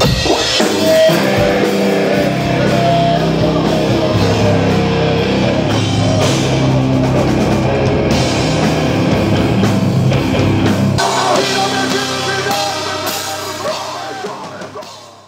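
Hardcore punk band playing loud distorted electric guitars, bass and drum kit. The deepest bass drops away about two-thirds of the way through, and the music fades out near the end.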